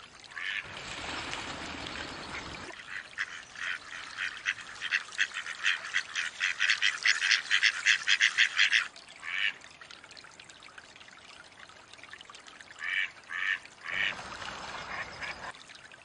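Mallards dabbling at the water's surface: a fast, loud chatter of short sharp strokes from their bills, about three to nine seconds in. Short quacks come here and there, and there are brief watery rushes near the start and the end.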